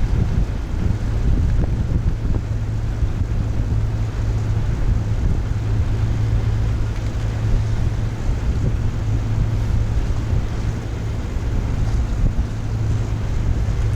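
River ferry's engine running with a steady low drone, with wind buffeting the microphone.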